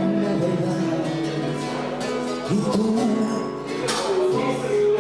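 Acoustic guitar strumming and plucking Latin-style music under a held melody line that glides into new notes about two and a half and four and a half seconds in.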